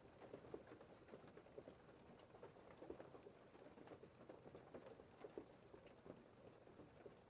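Faint, dense pattering of light precipitation: many small irregular taps with no rhythm, over a low hiss.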